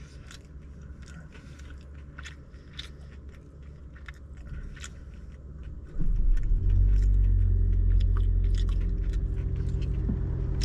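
Crunchy chewing on crispy fried chicken skin, with many small crackling bites. About six seconds in, a low engine rumble comes in suddenly and keeps running steadily, louder than the chewing.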